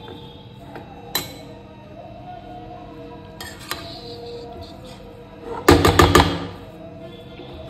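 Spoon stirring grated carrot as it fries in a pan, with a single sharp clink about a second in and a quick run of about five loud knocks of the spoon against the pan about six seconds in.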